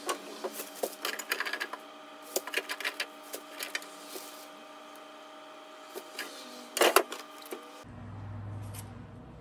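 Plastic grocery bag rustling and crinkling, with irregular knocks and clatter as items are handled and set down on refrigerator shelves and drawers, and a louder knock about seven seconds in. Near the end it turns to a quieter low hum with a couple of faint crinkles of plastic wrap.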